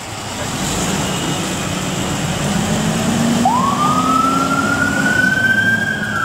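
Fire engine pulling out with its engine running. About three and a half seconds in, its siren starts up and winds upward in pitch, climbing fast and then more slowly to a high wail near the end.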